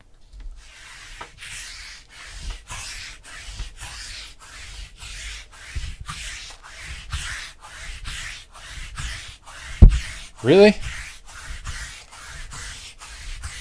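Rhythmic rubbing strokes, about three a second. One loud thump comes near the ten-second mark.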